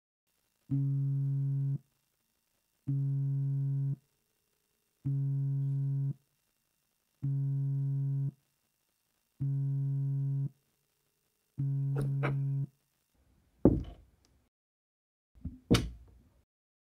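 A smartphone buzzing on a wooden tabletop as it vibrates with an incoming call or message: six steady buzzes of about a second each, evenly spaced about two seconds apart. Near the end come a few clicks and two sharp knocks.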